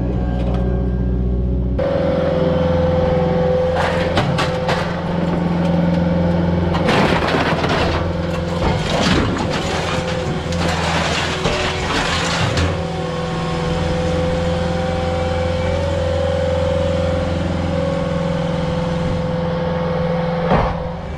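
Skid steer engine running steadily while debris dumped from its grapple crashes and clatters into a steel dump truck box, briefly about four seconds in, then in a longer run of crashes from about seven to twelve seconds.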